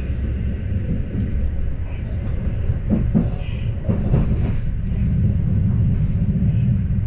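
Steady low rumble of a moving vehicle, with a few knocks about three to four seconds in.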